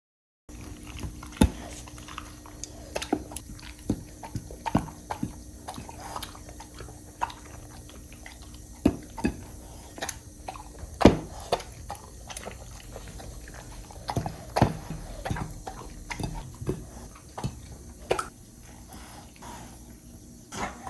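A dog eating: irregular wet clicks and smacks of chewing and licking, coming every half second or so at varying loudness.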